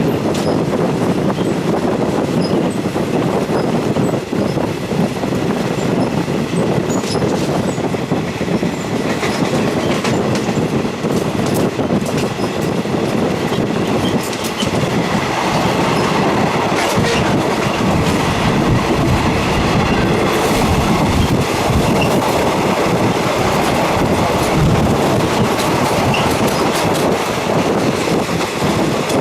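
Running noise of a Thai Railway third-class passenger carriage heard through its open window: the wheels clatter steadily over the rails, with many sharp clicks.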